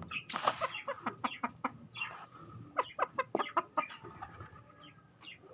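Hen clucking in irregular runs of short, sharp clucks, with a brief rustling burst about half a second in.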